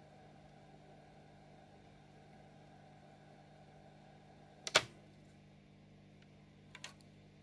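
Cassette transport of a vintage Hitachi TRK-5320E radio cassette recorder: a faint steady low hum, then a single sharp mechanical click about halfway through and two lighter clicks near the end.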